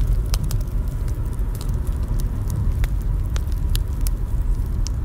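Campfire crackling: irregular sharp pops and snaps over a steady low rumble.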